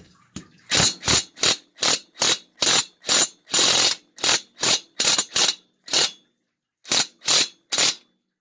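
Socket ratchet wrench clicking in short bursts, about three a second with a brief pause near the end, as it is swung back and forth to back out a bolt on a Tecumseh snowblower engine. The bolt is coming out with some difficulty.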